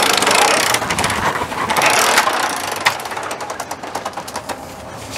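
Manual A&E 8500 RV patio awning being unrolled: a rushing rustle of the vinyl fabric and moving roller, then a run of quick metal clicks and rattles from the roller and aluminium support arms in the second half.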